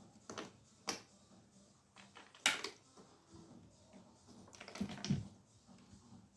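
A cat batting at a cap: a few scattered sharp taps and clicks, the loudest about two and a half seconds in, and a short cluster of duller knocks near five seconds.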